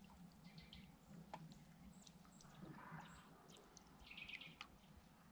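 Near silence: faint lakeside ambience with a few soft high bird chirps and light ticks.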